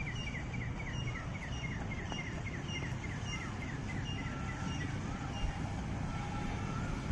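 Bird calling in a fast series of short, falling chirps, about four a second, thinning out after a few seconds, with a few longer level whistles later, over a steady low rumble.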